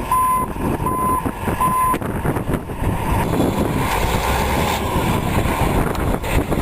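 A heavy vehicle's engine runs steadily while a reversing alarm gives three even beeps about three-quarters of a second apart. The beeps stop about two seconds in, and the engine runs on alone.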